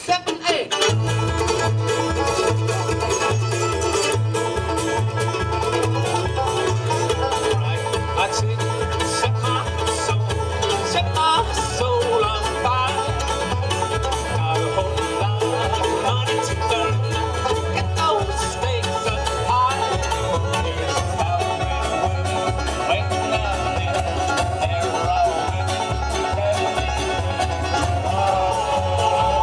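A live bluegrass band playing an up-tempo tune on banjo, acoustic guitar, mandolin, fiddle and upright bass, the bass coming in with a steady pulse about a second in.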